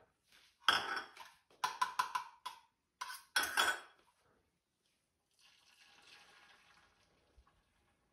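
Egg batter being whisked in a steel tumbler: metal clinking in quick, irregular bursts for about three seconds. A fainter hiss follows near the end.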